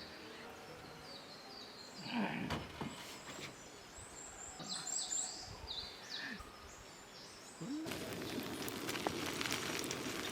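Small birds singing, with repeated quick high chirps. About eight seconds in, a sudden steady crackling hiss with many fine snaps takes over.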